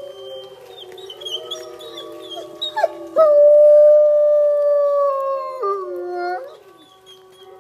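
Wolfdog howling: one long, loud howl starts about three seconds in, holds at a steady pitch, then drops lower near the end and breaks off. Fainter drawn-out tones run underneath from the start.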